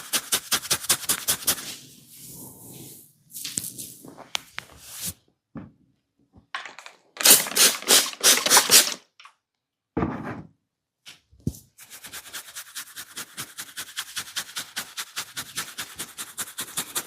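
Percussive massage strikes on the body: quick, even runs of sharp taps, about five or six a second, with a louder cluster of strikes in the middle and brief pauses between runs.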